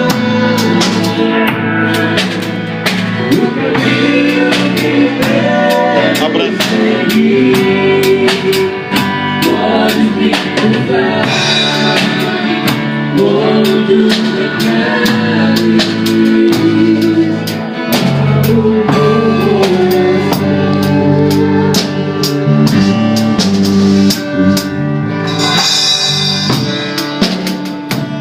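A band playing a worship song live, with a drum kit keeping a steady beat under other instruments.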